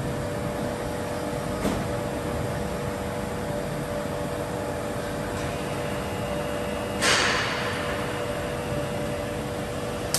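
Scharmann Heavycut floor-type boring machine running as its boring spindle feeds out of the headstock: a steady machine hum with two steady tones. There is a click about two seconds in, a higher whine joins past the middle, and about seven seconds in a loud hissing burst fades over about a second.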